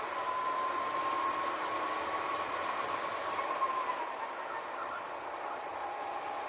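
Go-kart engine heard from onboard, running hard with a steady whine that climbs a little as the kart accelerates, then drops about four seconds in as the kart slows for a corner.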